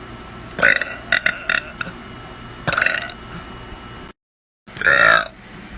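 A person burping several times: a burp about half a second in followed by a few short ones, another near three seconds, then, after a brief gap of dead silence, a loud burp near the end.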